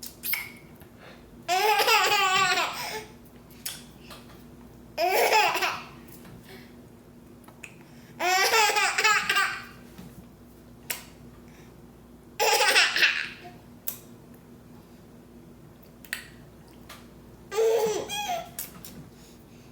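A person laughing in five short bouts of about a second each, a few seconds apart.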